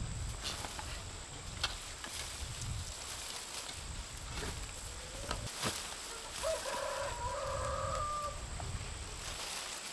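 A rooster crowing once, one long held call about two-thirds of the way in, with a few sharp knocks before it.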